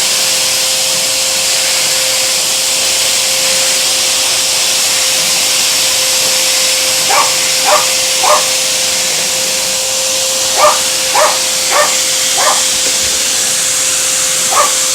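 Vacuum cleaner running with a steady hiss and whine. From about halfway through, a dog barks at it in short runs: three barks, then four, then one more near the end.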